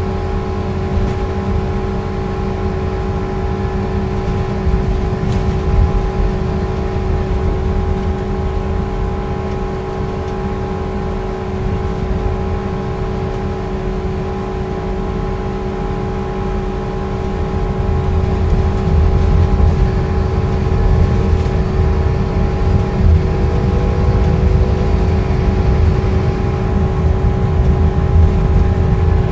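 Scania K230UB bus's rear-mounted five-cylinder diesel engine running, heard from inside the passenger saloon: a low engine and road rumble with a steady whine over it, growing louder a little over halfway through.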